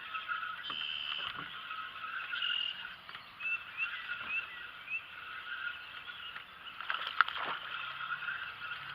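A chorus of frogs calling steadily around the lake, with a few short rising bird chirps about halfway through and a brief cluster of sharp clicks about seven seconds in.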